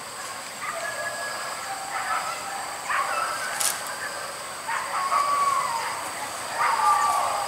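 Hunting dogs whining and whimpering: a string of high, bending cries, short ones at first and longer falling whines in the second half, over a steady high hiss.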